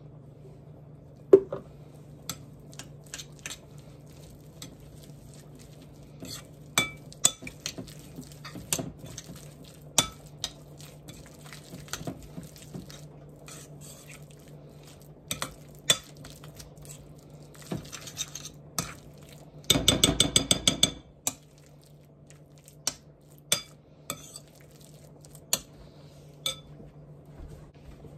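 A metal utensil clinking and scraping against a ceramic mixing bowl as diced ham and mayonnaise are stirred together into ham salad. The taps come scattered and irregular, with a quick run of rapid clinks about twenty seconds in, over a steady low hum.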